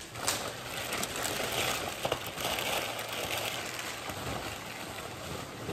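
Crumpled wrapping paper rustling and crackling as it is gathered up and stuffed into a plastic trash bag.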